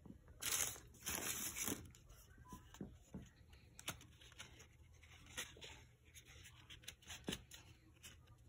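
Tissue paper in a shoebox rustling and crinkling as hands move it, with a couple of louder bursts in the first two seconds, then faint scattered rustles and small ticks.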